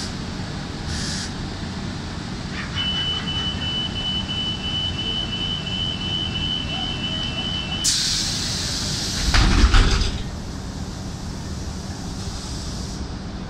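Bus door-closing warning: a high, rapid beeping for about five seconds, then a burst of hissing air and a heavy thud as the doors shut, over the steady rumble of the idling bus.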